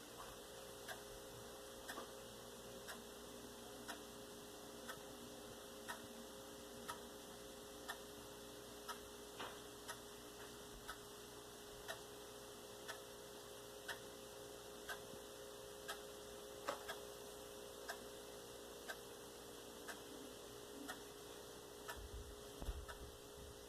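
Faint, regular ticking about once a second, like a clock, over a low steady hum, with a few soft low bumps near the end.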